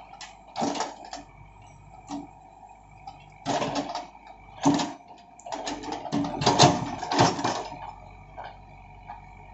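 Backhoe loader at work: its engine runs steadily with a thin whine. Several loud bursts of clattering break in, heaviest in a cluster a little past halfway.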